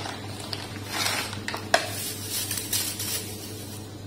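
Rustling and light knocks of hands handling plastic packets and dry china grass (agar-agar) strands at a stainless steel pot, with two sharp taps about a second and a half in, over a steady low hum.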